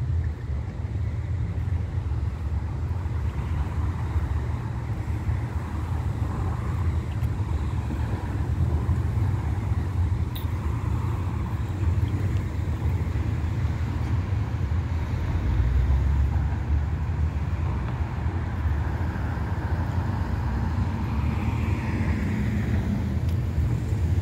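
Street ambience: traffic on a nearby road over a steady low rumble that swells briefly about two-thirds of the way through.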